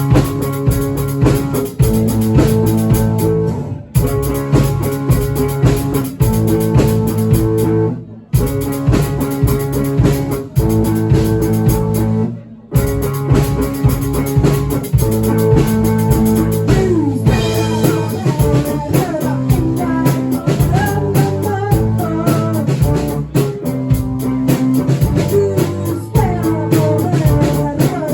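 Rock band playing live with electric guitar, bass and drum kit. The whole band stops dead for a moment about four, eight and twelve seconds in, and from the middle on a wavering, bending line rides over the band.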